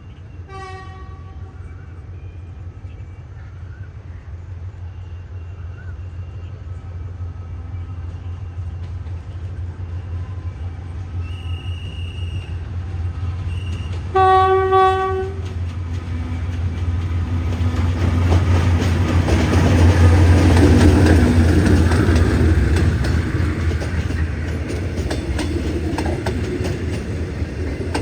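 A diesel train sounds its horn twice, a short blast about half a second in and a louder one about a second long midway, while its low engine and wheel rumble grows as it approaches and passes.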